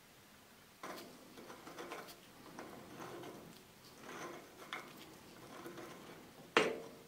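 Small steel parts of a compass cutter being handled and a collar threaded onto a threaded post: scattered light metal clicks and scraping, then one sharp metallic click with a short ring near the end.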